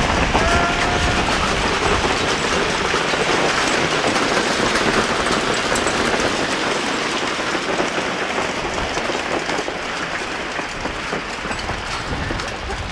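Heavy rain pouring down onto a wet street and café terrace: a loud, steady hiss.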